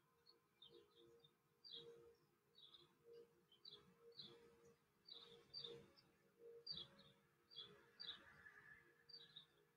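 Faint bird chirping: short high chirps repeating about twice a second.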